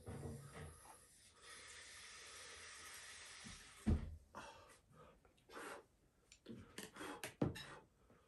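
A person slurping noodles: one long hissing slurp lasting a couple of seconds, then a sharp thump about four seconds in, followed by a few shorter slurps.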